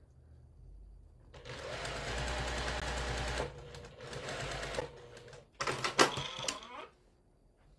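Domestic sewing machine stitching a seam: a fast run of about two seconds, then slower stitching, then a few sharp loud clicks about six seconds in. The machine is not running right.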